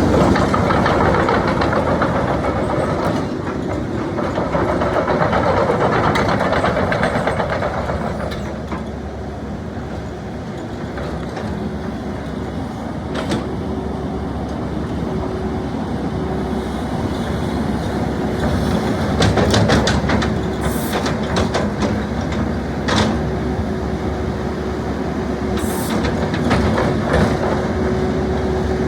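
Doosan DX140LCR-3 15-ton excavator running, its engine and hydraulics working with a steady hum and rumble that rise and fall. Sharp knocks come now and then in the second half.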